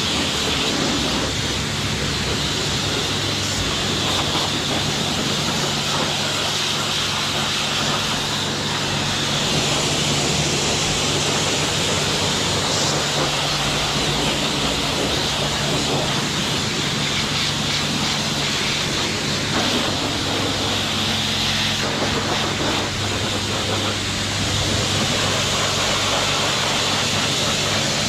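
Pressure washer running: a steady motor hum under the hiss of the high-pressure water jet spraying onto a motorcycle.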